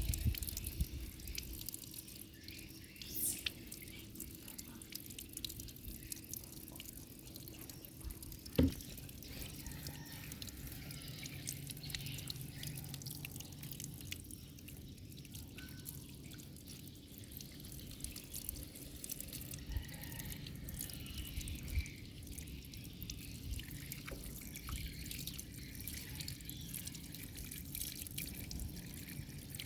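Water dripping and splashing in many small irregular drips, with a single knock about eight and a half seconds in.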